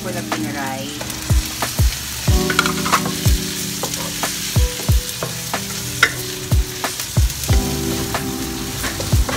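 Fried tofu and pork sizzling in a nonstick wok with sautéed garlic and onion, stirred with a wooden spatula that knocks against the pan again and again.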